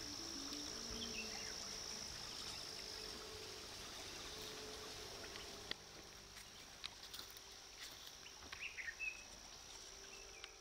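Evening insects, crickets or similar, keeping up a steady high-pitched drone, with a few short chirps and scattered faint clicks over it.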